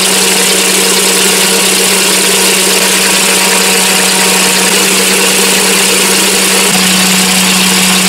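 Electric mixer running steadily with a constant motor hum, whipping egg yolks while hot sugar syrup is poured in for a pâte à bombe.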